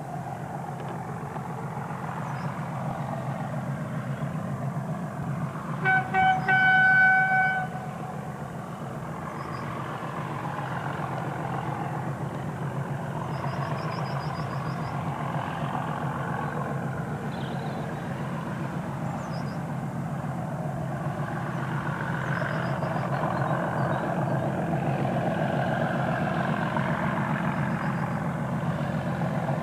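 Two English Electric Class 37 diesel locomotives working hard on a steep climb, their V12 engines giving a steady deep rumble that grows louder as they approach. About six seconds in, a locomotive horn sounds: two short pips, then one blast of about a second. Faint bird chirps sound now and then.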